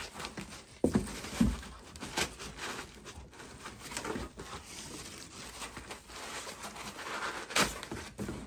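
White foam packing pieces handled and lifted out of a cardboard box: foam rubbing and scraping against foam and cardboard, with a few sharp knocks, one about a second in and another near the end.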